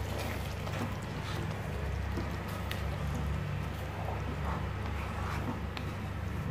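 A spoon stirring sugar into a thick curry gravy in a pan, with a few light taps and scrapes over a steady low hum.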